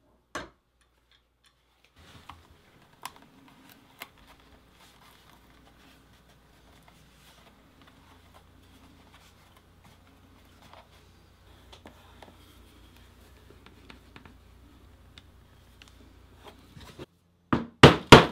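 Near the end, several quick, loud blows of a poly maul on a stitching chisel, punching stitch holes through thick vegetable-tanned leather. Before that, faint handling and scraping of the leather over a low hum, with a single sharp click just after the start.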